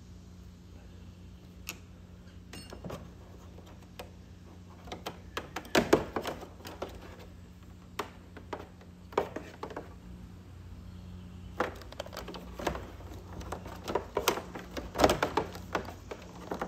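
Irregular clicks, taps and short rattles of a screwdriver and wiring being handled in a scooter's plastic battery compartment, with busier clusters about six seconds in and again near the end, over a steady low hum.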